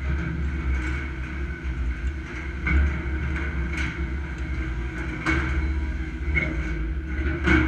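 Steady low rumble of wind on the microphone high on an open steel frame, with a handful of short metallic clicks and knocks from work on the corrugated steel decking.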